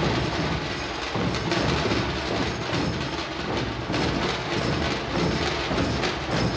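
Dhol-tasha drumming: large barrel dhols and small tasha drums beaten with sticks in a fast, dense rhythm, with strong accents about once a second.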